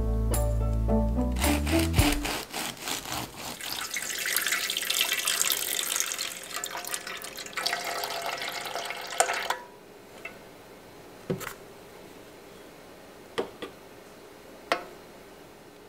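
Background music, then water running from a tap for about eight seconds, cutting off suddenly; a few light clicks follow.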